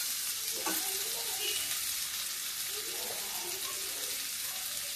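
Diced potatoes and tomatoes frying in oil in a steel kadhai, a steady sizzling hiss.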